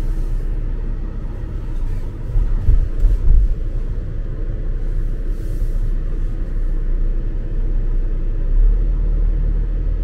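Steady low rumble of a car in motion: road and engine noise, swelling a little about a third of the way in.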